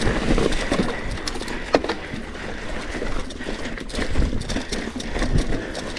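Trek Fuel EX 9.7 full-suspension mountain bike climbing rocky singletrack: steady tyre rumble over rock and dirt with scattered sharp knocks and rattles, the loudest about two seconds in, under the rider's panting.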